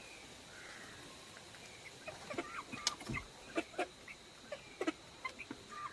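Aseel chickens clucking in short scattered calls, starting about two seconds in, with a soft low thump just after the middle.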